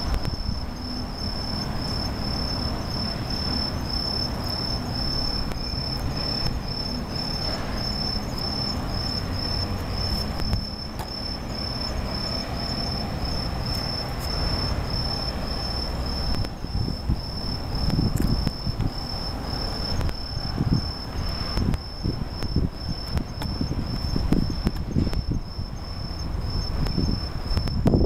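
Bell crickets (suzumushi) singing: a high ringing chirp repeated about twice a second without a break, over a steady low rumble. In the last third, irregular low thumps on the microphone come more often.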